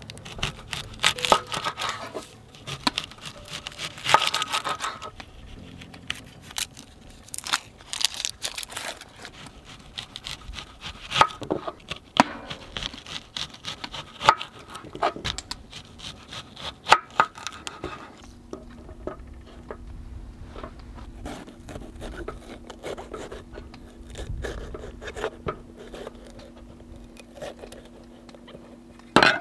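Kitchen knife cutting an onion and a bell pepper on a wooden cutting board: irregular sharp knocks of the blade on the board. A steady low hum comes in about two-thirds of the way through.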